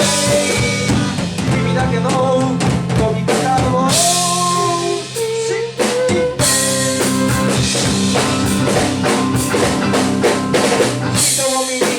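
Live rock band playing an instrumental passage: drum kit with bass drum, snare and rimshot hits under sustained guitar and keyboard chords.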